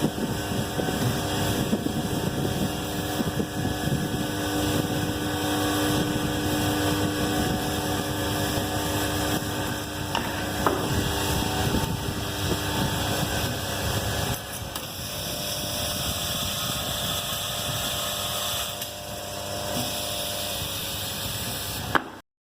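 Automatic motor brush welding machine running, a steady mechanical hum and hiss with a few held tones. There is a sharp click about ten and a half seconds in, and the sound changes character around fourteen seconds and again near nineteen. It cuts off abruptly just before the end.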